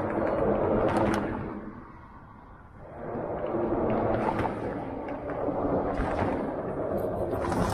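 Wind gusting against the microphone: a rough rushing noise that swells, drops away about two seconds in, then rises again and holds.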